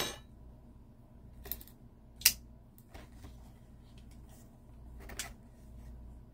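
Scattered sharp clicks and taps of objects being handled, the loudest a little over two seconds in, over a faint steady low hum.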